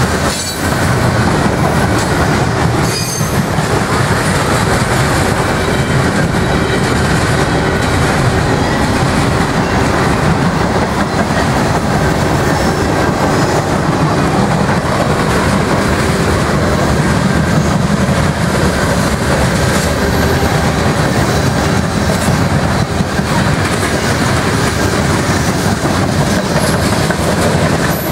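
Freight cars of a manifest train rolling past close by: a steady, loud rumble of steel wheels on rail with clickety-clack over the joints, and wheel squeal at times.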